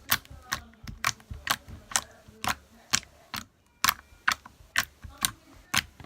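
Slime being played with by hand, making sharp, evenly spaced clicking pops about twice a second.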